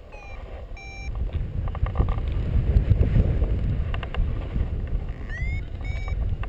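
Airflow buffeting the microphone of a paraglider in flight, with a paragliding variometer sounding a few short high climb beeps over it, one rising in pitch about five seconds in.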